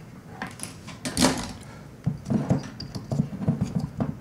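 Small clicks and knocks of hands and tools handling a 1/4" TRS plug held in a soldering stand, with one louder scrape about a second in and a run of light knocks after it.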